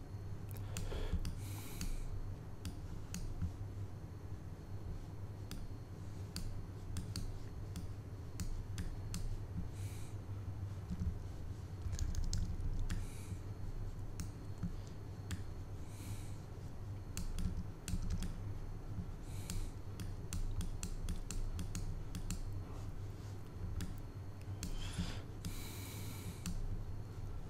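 Irregular clicking and tapping of a computer keyboard and mouse, with a few short scratchy strokes, over a steady low hum.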